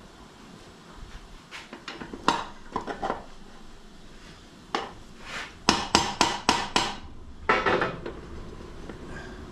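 Metal-on-metal taps and clinks from tools and rear-axle hardware while a Harley Sportster's rear axle is refitted: scattered clinks, then a quick run of about six sharp taps near the middle and a short rattle just after.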